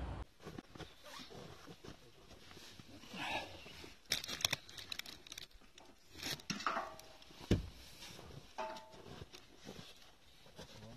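Scattered rustling and light clicking, with a sharp thump about seven and a half seconds in.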